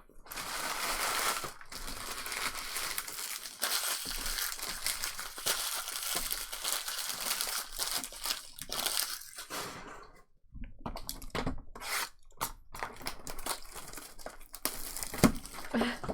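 Trading card pack wrappers being torn open and crinkled, a steady crinkling for about ten seconds, then a run of shorter separate crinkles and clicks as packs and cards are handled.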